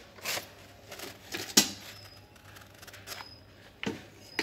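Paper instruction booklets rustling and flapping as they are handled and lifted out of a stainless steel cooker pot, with a few sharp taps, the loudest about one and a half seconds in.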